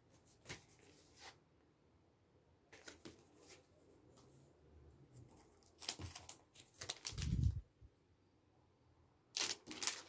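Vinyl LP record sleeves being handled: cardboard sleeves rustling and sliding in short scattered bursts, with a dull thump about seven seconds in.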